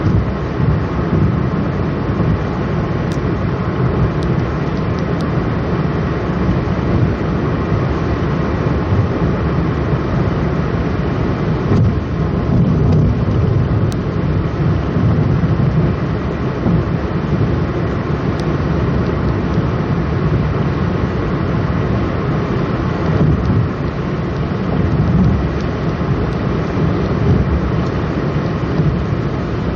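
Steady low rumble of road, tyre and wind noise with engine drone inside a ninth-generation Honda Civic's cabin, cruising at highway speed of about 120–130 km/h while slowly gaining speed.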